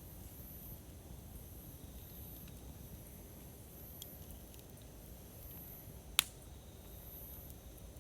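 Wood campfire burning: a steady low rustle of the flames with a few faint crackles, and one sharp, loud pop a little after six seconds in.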